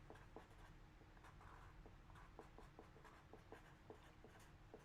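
Near silence, broken only by faint, scattered light clicks at irregular intervals.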